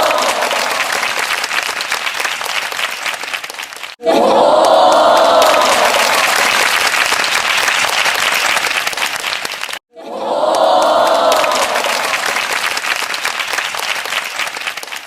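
Crowd applauding and cheering, with voices swelling at the start of each burst and fading into steady clapping. The same short applause clip is looped, cutting off abruptly and restarting about four seconds in and again about ten seconds in.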